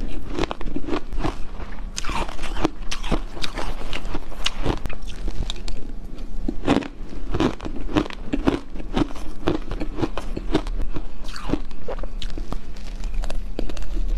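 Hard frozen shaved ice being crunched and chewed in the mouth: a fast, continuous run of crisp crunches, several a second.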